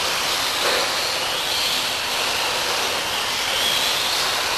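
Radio-controlled stadium trucks racing round an indoor track: a steady hiss of motors and tyres with a high whine that rises and falls as the trucks speed up and slow down.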